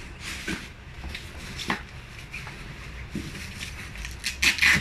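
Folded playpen and its padded fabric mattress cover being handled and wrapped: rustling with a few light knocks, then a louder rasping pair near the end as a hook-and-loop strap is worked.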